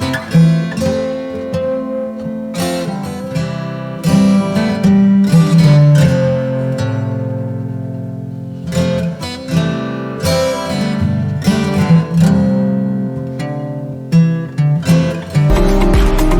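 Background music: plucked acoustic guitar playing a melody.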